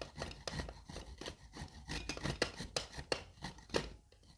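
Fresh ginger rubbed on a hand grater: quick, uneven scraping strokes, about three a second, that stop about four seconds in.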